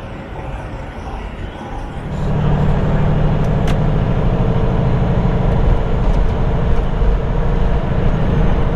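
Semi truck's diesel engine running, with a steady low rumble that gets louder about two seconds in and then holds.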